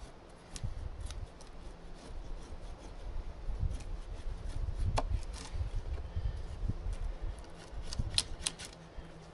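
A light knife blade shaving a wooden rabbit stick in a series of irregular scraping strokes, rounding over its top side, with a sharp click about halfway through and a few more near the end.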